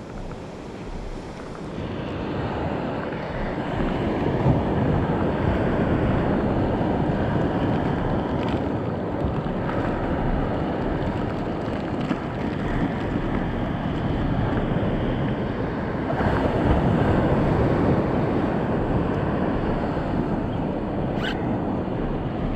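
Surf washing on a beach, with wind buffeting the microphone: a steady rush of noise that swells over the first couple of seconds and then holds.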